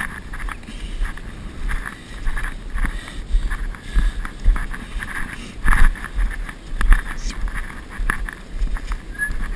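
Gusty wind buffeting the microphone in uneven surges, with irregular higher-pitched noisy patches over it.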